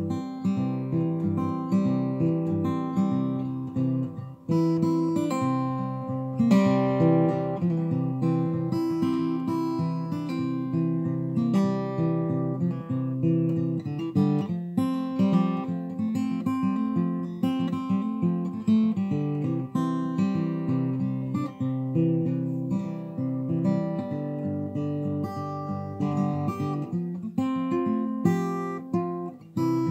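Background music: a guitar riff on acoustic guitar, plucked and strummed.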